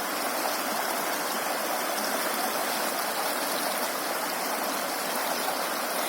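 Floodwater rushing in a steady, even flow.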